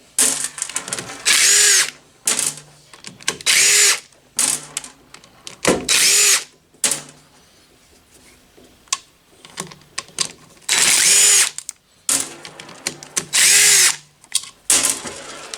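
Power drill with an 8 mm socket spinning out engine-case bolts in short runs, about six of them, each whine rising and falling as the bolt backs out, with small clicks and knocks of parts being handled in between.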